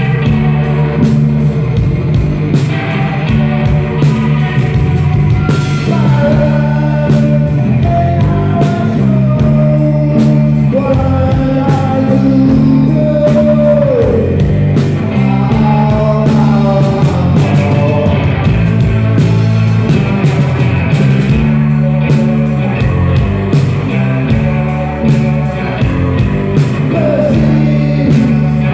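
Live rock band playing with electric guitars and a drum kit, and a man singing lead from about six seconds in.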